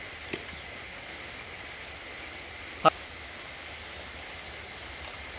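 Steady background hiss, with a faint click early on and a single short, sharp knock about three seconds in.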